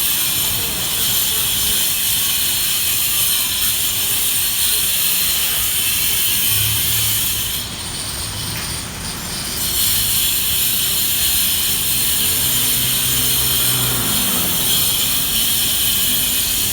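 Electric grinder running on a construction site, a steady harsh high-pitched grinding. It eases off for about two seconds partway through, then bites again. Underneath, a low hum drops in pitch near the end.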